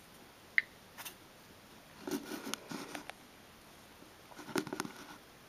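Fingers handling and tapping an iPod touch: a single sharp tick about half a second in, then soft scattered clicks and rustles twice more.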